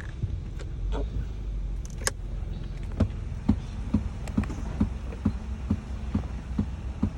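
A car running, heard from inside the cabin as a steady low rumble. From about three seconds in, the indicator flasher ticks evenly, a little over twice a second.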